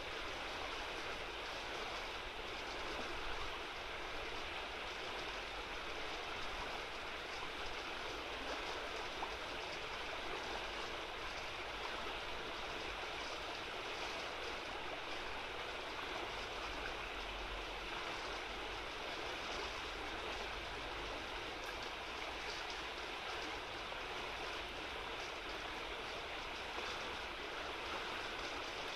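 Steady rushing and babbling of a shallow, fast-flowing river running over broken water.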